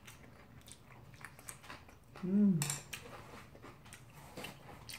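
Quiet eating sounds: chewing and small clicks of chopsticks against dishes, with one short hummed "mm" from a person about two seconds in, rising then falling in pitch.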